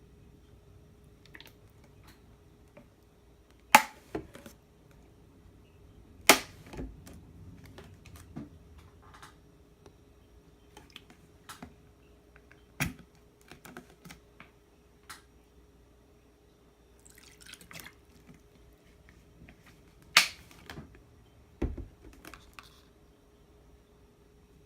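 Kitchen utensils and containers knocking and clacking during food preparation: a handful of sharp clacks, about five loud ones, scattered among lighter clicks, over a faint steady hum.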